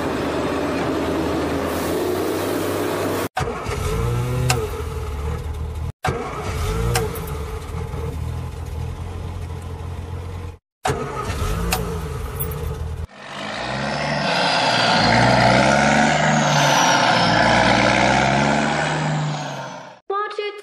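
Vehicle engine sound effects spliced one after another: an engine running steadily, then revving up and down in short rises and falls, each clip cutting off abruptly, with a louder, stronger-revving stretch in the last third.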